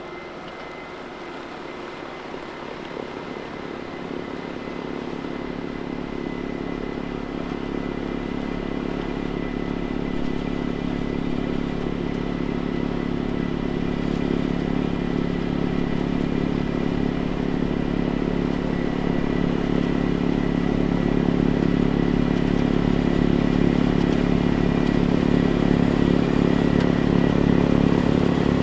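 Kubota MX6000 tractor's diesel engine running steadily with a thin high whine, growing steadily louder throughout as it comes closer.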